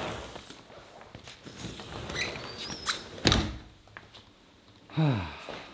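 Light household handling clicks, then one heavy thunk like a door shutting about three seconds in. Near the end comes a short sound that slides down in pitch.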